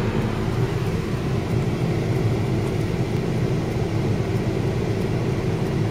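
Car engine running, a steady low rumble heard from inside the cabin.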